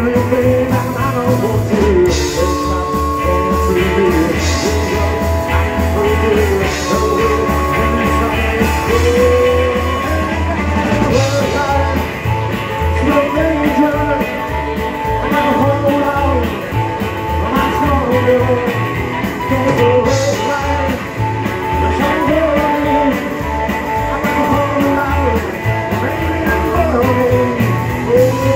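A rock'n'roll band playing live, with harmonica carrying the tune over acoustic and electric guitar, upright bass and drums on a steady beat.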